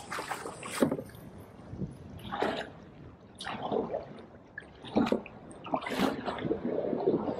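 Kayak paddle strokes dipping and splashing in sea water, a splash every second or so.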